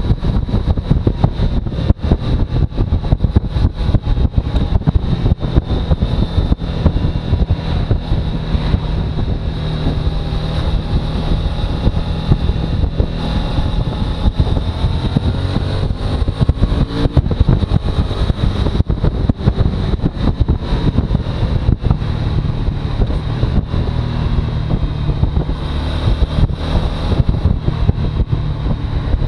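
Suzuki V-Strom motorcycle engine running steadily, its pitch drifting slowly up and down, with wind buffeting the microphone.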